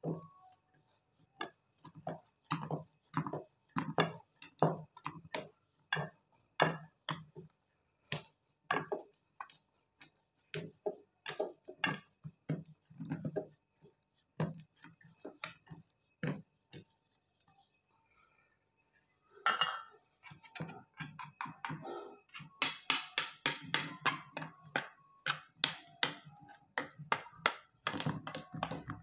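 Glass bowl tapping and pressing down on a layer of crushed vermicelli in a metal pan, making irregular soft knocks about one or two a second. After a short pause there is quicker, sharper tapping near the end.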